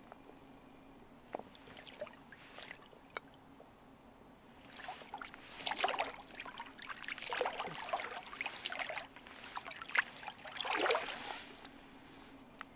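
Water sloshing and gurgling as a bottle is dipped into open water and filled, in uneven bursts from about five seconds in until near the end, with a few light clicks before.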